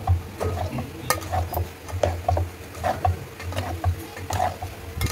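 Metal spoon stirring and scraping chicken bhujing and poha around an aluminium pot, with a clink or scrape every half second or so, over a steady low hum.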